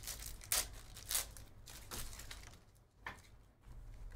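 2023 Panini Phoenix football cards being slid out of their foil pack wrapper and flicked through by hand. It gives about five quick swishes and rustles of card against card and wrapper.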